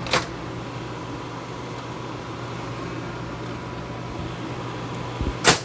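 Steady hum of two RV air conditioners running under load. There is a short click just after the start and a louder sharp knock near the end.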